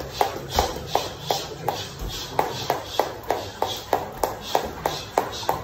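Jump rope skipping: the rope slaps the floor on each turn in a steady rhythm, about three sharp slaps a second.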